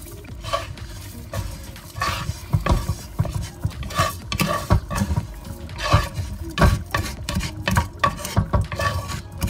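A spatula scraping and knocking against a frying pan as toasted rice is pushed out of it into a pot of broth: a run of irregular clicks and knocks that grows busier about two seconds in.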